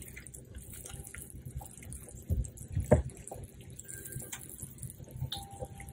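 Melted-butter sauce being stirred in a pan with a silicone spatula: small wet liquid sounds and scattered light clicks, with two louder knocks about two and a half and three seconds in.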